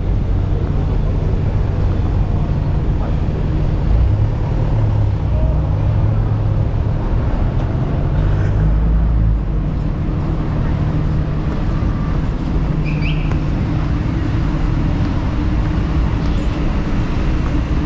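City street ambience: a steady low rumble of road traffic, with voices in the background and a brief high chirp about two-thirds of the way through.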